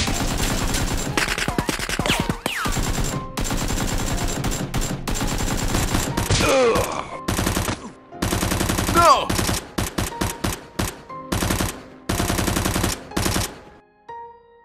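Bursts of automatic gunfire sound effects, fired in rapid runs with short breaks between them; the firing stops shortly before the end.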